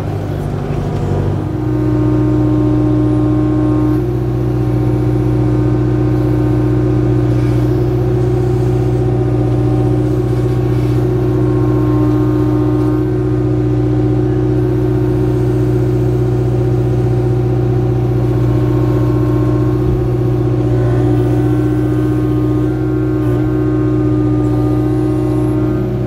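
Kubota KX057-4 mini excavator's diesel engine running steadily while the boom, bucket and thumb grab and lift a log. The engine note steps up about a second and a half in and then holds.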